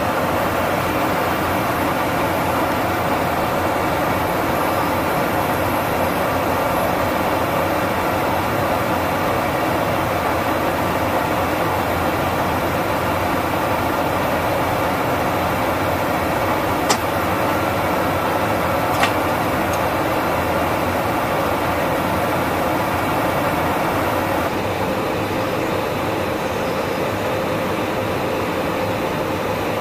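Steady in-flight noise inside a jet aircraft: an even roar of engines and rushing air. Two brief clicks come a little over halfway through, and the noise thins slightly near the end.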